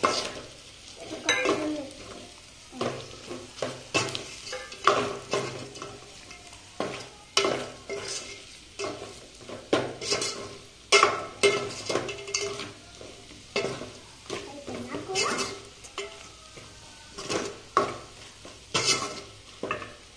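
A steel spoon stirring and scraping chicken pieces through thick masala in an aluminium pot, in repeated uneven strokes about one or two a second.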